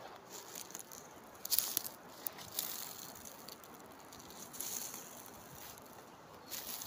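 Dry leaf litter and twigs rustling and crunching in a few short crackly bursts, as someone moves through the undergrowth searching for morels.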